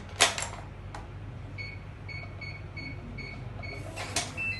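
Epic digital door lock's keypad giving about six short, evenly spaced beeps of the same pitch, one per key press as a code is entered, after a couple of sharp clicks at the start. Near the end comes a louder click, then the first notes of a short chime of changing pitch.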